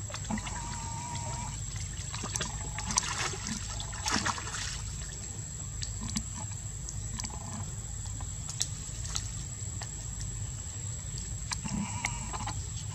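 Water splashing and trickling as a young monkey swims in a shallow stone pool and climbs out, dripping onto wet stone steps. Scattered small knocks and clicks come through along the way.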